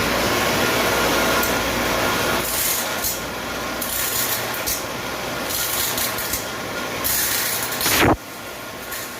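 A machine running steadily with a hum, its sound changing about two and a half seconds in. Near the end a loud falling whoosh cuts off suddenly.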